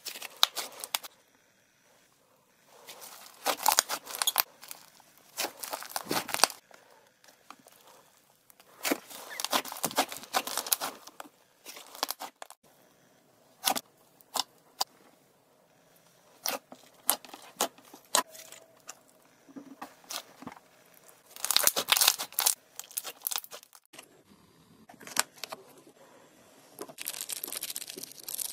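Slime being stretched, folded and poked by hand, giving irregular bursts of sticky crackling and popping with short pauses between. Several different slimes are handled in turn, among them a fluffy white slime and a foamy pink one.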